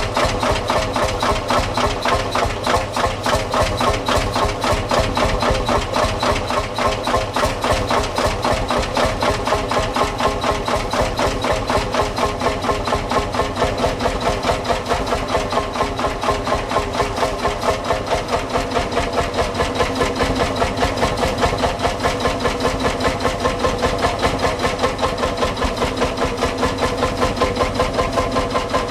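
Old farm tractor engine idling steadily with an even, regular pulsing beat.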